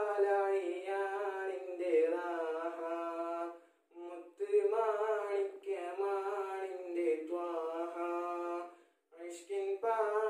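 A teenage boy singing a Malayalam Islamic devotional song unaccompanied, in long drawn-out phrases with wavering, ornamented notes. He pauses for breath about four seconds in and again near the end.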